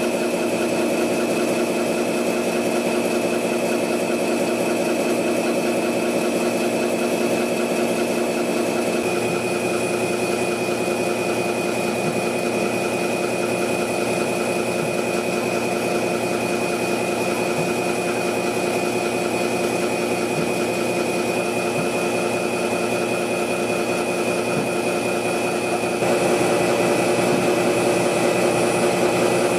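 Industrial machinery running steadily: a constant mechanical hum with a high whine on top. The tone shifts about nine seconds in, and the sound grows louder near the end.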